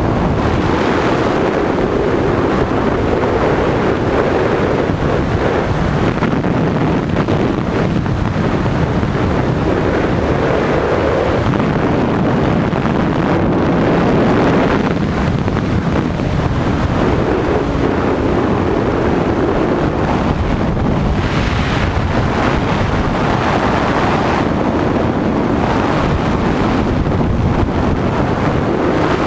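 Wind buffeting the microphone of a GoPro in its frame mount: a loud, continuous rumble that swells and eases slowly.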